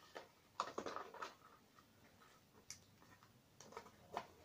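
Faint, scattered small taps and crinkles of fingers pressing sticky tape onto a resin-stiffened cardboard model. A quick cluster comes about a second in, then a few single clicks.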